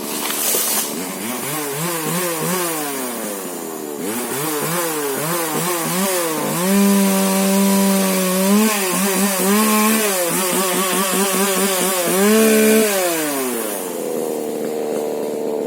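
Husqvarna 125 two-stroke chainsaw with a modified exhaust, cutting into a rubber tree: the engine revs rise and fall over and over, with two longer steady stretches in the middle as the chain bites into the wood.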